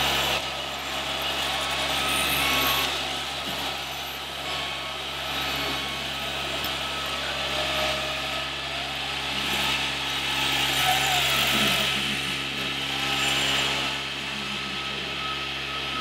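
Radio-controlled scale Liebherr L 576 wheel loader at work: the whirr of its small electric drive and hydraulic pump, swelling and easing several times as it drives and lifts a loaded bucket.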